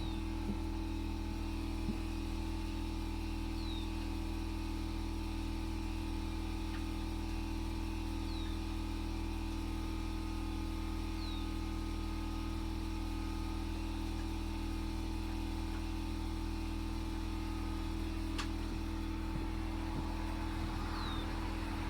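A steady, unchanging low mechanical hum of a running motor or engine, with a few faint, short high chirps scattered through it.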